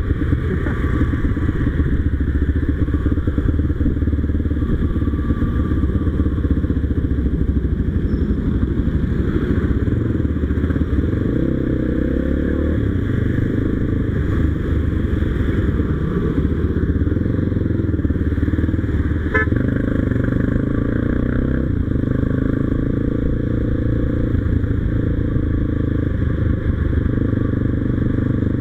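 Motorcycle engine running on the move, its note rising and falling with the throttle over a steady low rumble.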